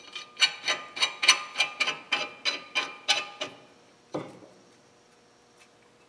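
Sharp metallic clicks, about three a second with a ringing tone after each, as a lug nut is run onto a wheel stud on the bare front brake rotor and hub. The clicks stop after about three and a half seconds, and a single duller knock follows about a second later.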